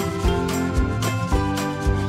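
Background music with a steady beat about twice a second under sustained melodic notes.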